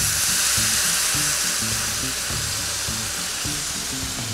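Beef stock poured into a hot cast iron pan of browned onions, sizzling and hissing as it hits the pan, the hiss easing slowly as the liquid settles into a bubbling boil.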